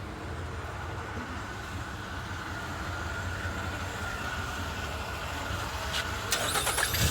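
2008 Nissan Rogue's engine running steadily just after starting on a newly fitted starter motor. A brief rising sound comes in near the end.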